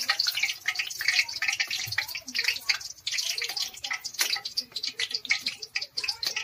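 Hot oil sizzling and crackling densely around battered, deep-fried chicken feet as they are lifted from the pan in a wire mesh strainer.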